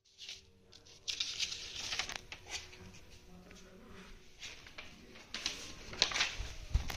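Rustling and crackling with many sharp clicks and taps from the phone being handled and moved, and a low thump near the end.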